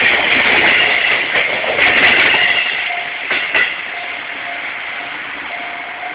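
Seibu Line train rolling past at a railroad crossing: a steady rushing of wheels on rail, with a double clack of wheels over a rail joint about halfway through, after which the noise eases as the train moves off.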